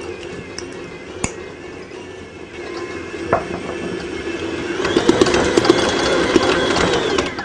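Electric stand mixer's motor running as its dough hook kneads bread dough, with clattering ticks as the dough slaps the bowl. It gets louder for the last couple of seconds, then stops abruptly as the mixer is switched off.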